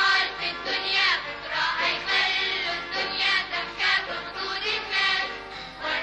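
Children's choir singing the theme song of a children's TV series, with a bright instrumental backing in a steady rhythm.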